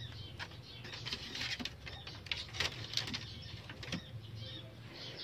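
Rustling and soft knocks of a handheld phone being carried and moved about, with faint birds calling in the background.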